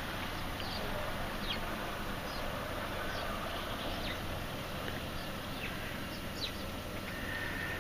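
Small birds giving short, scattered chirps, about a dozen, each a quick downward sweep, over a steady outdoor hiss.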